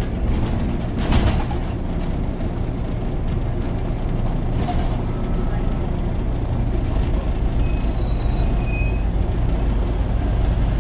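Scania OmniCity bus heard from inside the saloon while driving: a steady diesel engine and road rumble, with a short air hiss about a second in.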